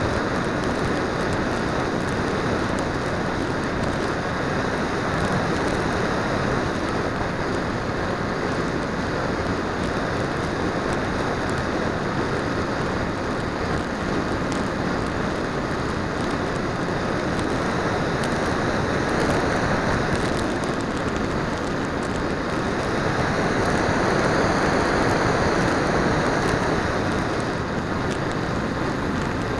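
Steady rush of wind and propeller noise from a radio-controlled flying wing in fast flight, heard through its small onboard camera's microphone. It swells briefly about two-thirds of the way in and again near the end.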